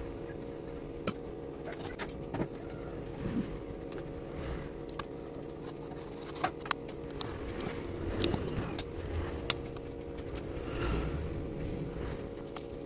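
Scattered short clicks and taps of plastic model-kit pieces being handled and fitted together, over a steady low hum.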